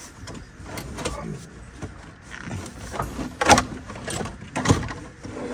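Car dashboard being worked loose and shifted, with plastic rubbing and knocking against the car's interior and two sharp knocks about three and a half and four and a half seconds in.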